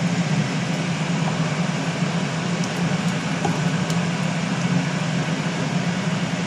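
Steady low hum with an even rushing hiss, and a few faint light taps as a metal pot of boiled bitter gourd is tipped and drained over a stainless steel sink.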